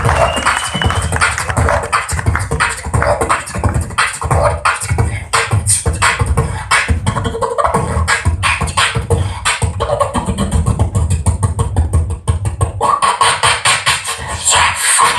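Beatboxing through a stage microphone: a fast, steady groove of vocal kick drum, snare and hi-hat sounds. Near the end a denser hissing layer thickens the pattern.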